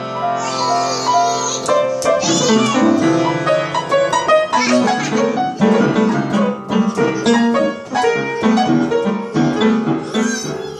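Upright piano keys banged at random by two small children: clusters of notes struck with open hands, one after another, ringing into each other with no tune.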